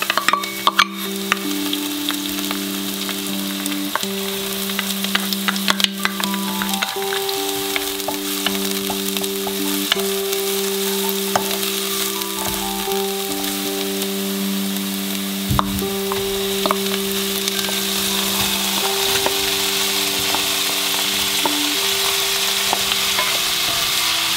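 Chopped green onion and garlic sizzling in oil in a frying pan while a wooden spatula stirs and scrapes them. The sizzle grows louder near the end, when diced pork and vegetables are stir-fried.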